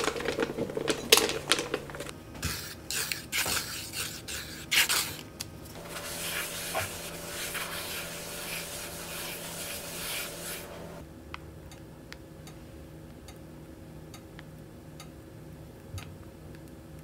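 A folded paper towel rubbed round the inside of a granite-coated nonstick frying pan, greasing it with butter, in a steady rubbing from about six to eleven seconds in. Before that comes a quick run of sharp clicks and knocks, and after it faint ticks about once a second.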